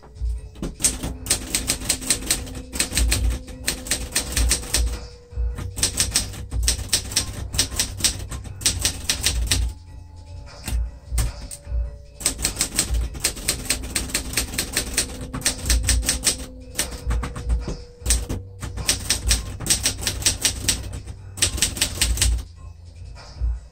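Adler J5 manual portable typewriter being typed on: quick runs of key strikes, broken by short pauses every few seconds.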